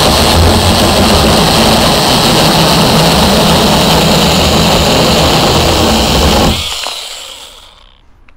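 IMOUMLIVE cordless 6-inch brushless mini chainsaw running under load, its chain cutting steadily into a roughly 2-inch hardwood branch. About six and a half seconds in the motor cuts off and the chain winds down to a stop over a second or so.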